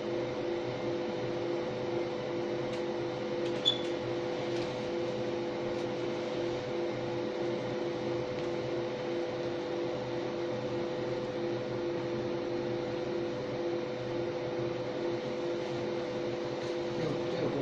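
MOPA fiber laser marking machine running while it colour-marks stainless steel: a steady hum with two held tones, the lower one faintly pulsing. A single short click sounds a few seconds in.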